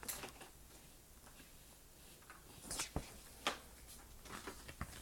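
A few faint, scattered clicks and taps from handling: the sharpest come in a cluster about three seconds in, then a few smaller ticks toward the end.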